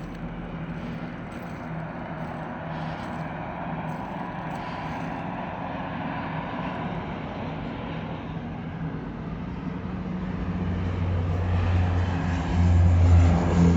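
Turboprop airliner's engines at takeoff power during the takeoff run: a steady drone that swells to much louder over the last few seconds as the plane comes closer.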